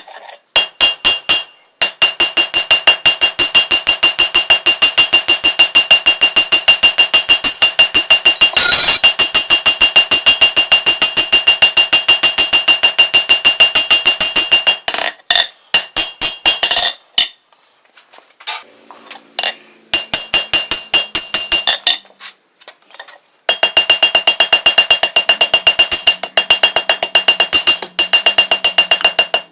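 Rapid, evenly spaced hammer blows on a hot mild-steel bar over an anvil, each blow ringing. The hammering runs in long stretches, stopping for a few seconds about halfway through and briefly again a little later.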